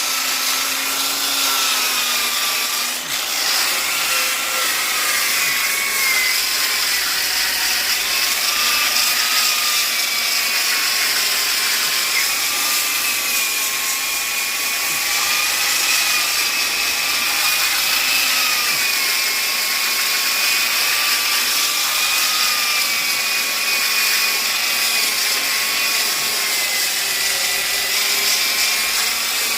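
Black & Decker electric polisher-sander running steadily while sanding hardwood (ipê roxo), its motor whine wavering slightly in pitch over the hiss of the abrasive on the wood, with a brief dip about three seconds in.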